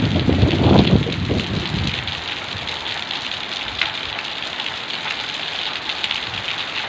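Heavy rain pouring down steadily, with a low rumble over the first two seconds.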